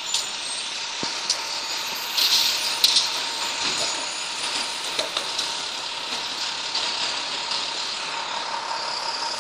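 Downtown street traffic noise, steady, with sharp clicks and a louder hissy stretch about two to three seconds in as the camera is handled close to the microphone.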